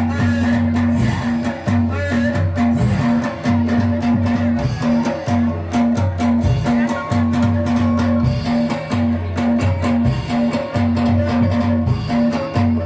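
Loud music accompanying a soreng dance, with a steady beat, a repeating bass line and plucked or struck melody notes.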